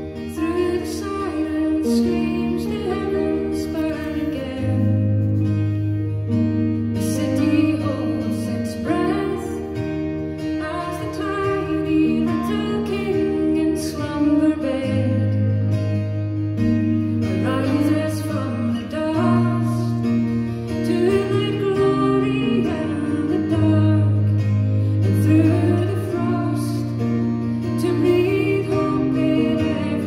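Live folk song: a woman singing over a plucked guitar, with long held low chords underneath that change every few seconds.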